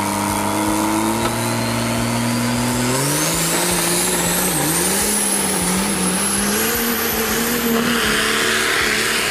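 Triple-turbocharged 6.7-litre Cummins diesel in a pulling truck under full load, dragging a weight sled. The engine runs steadily, then revs up about three seconds in and wavers in pitch as it pulls, while a high turbo whine climbs steadily in pitch and then holds.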